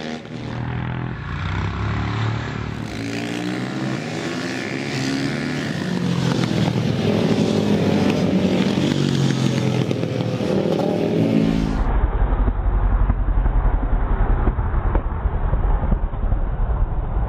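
Several supermoto motorcycle engines revving up and down as a group of bikes rides through a corner close by. About twelve seconds in, the sound changes abruptly to a heavy low rumble under the engines.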